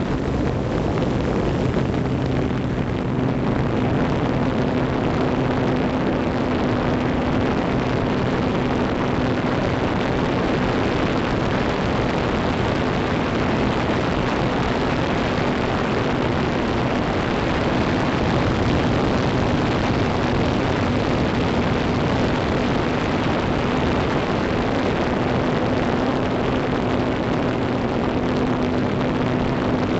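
Motors and propellers of a remote-controlled FPV aircraft, heard from its onboard camera: a steady motor hum under a constant rush of propeller wash and wind.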